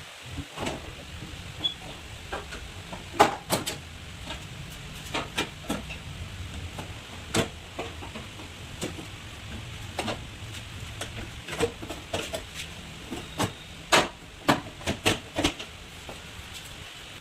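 Irregular metallic knocks and clanks of tools working on car body parts, a dozen or more sharp hits at uneven spacing, the loudest about three seconds in and again near fourteen seconds, over a low steady hum.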